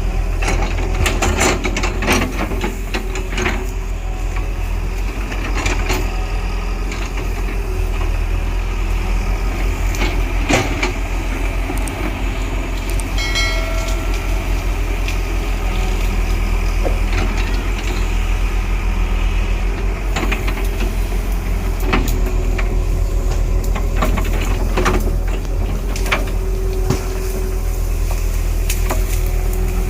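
Diesel engine of a heavy JCB earthmoving machine running steadily, with scattered metallic clanks and knocks from the machine working, and a brief pitched tone about halfway through.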